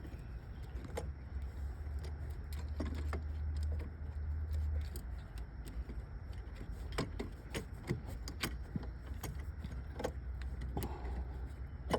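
Scattered light metallic clicks and clinks of hands and parts working a kill switch onto a car battery terminal, over a steady low rumble.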